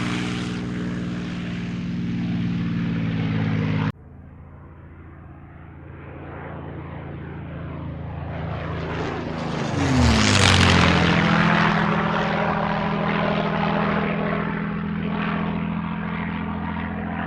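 Propeller airplane engine running steadily, cut off abruptly about four seconds in. Then a propeller plane grows louder, passes by with a sharp drop in pitch about ten seconds in, and drones on while slowly fading.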